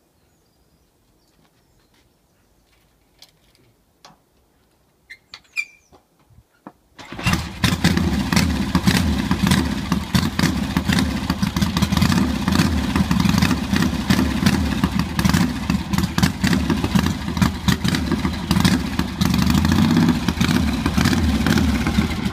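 A Triumph 650 parallel-twin motorcycle engine with dual AMAL carburettors and dual exhausts. After a few faint clicks it starts about seven seconds in and runs at a steady idle for about fifteen seconds, then cuts off at the very end.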